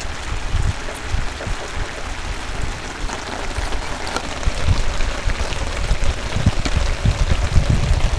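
Steady rain falling, an even hiss scattered with many small drop ticks, over a low, uneven rumble of wind buffeting the microphone.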